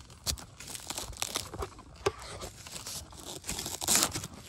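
A steel blade chopping into the base of a bamboo shoot among dry leaf litter: a run of crunching, tearing cuts, the loudest near the end.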